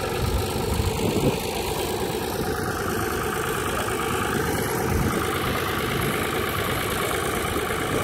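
Blue Ford tractor's engine running steadily under load, pulling a mounted plough through the soil.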